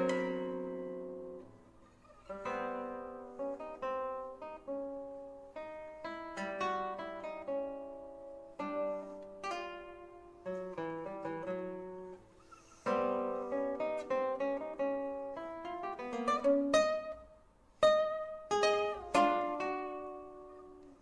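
Solo classical guitar playing a nocturne: plucked single notes and chords that ring and die away, with short pauses between phrases and a few sharper, louder chords near the end.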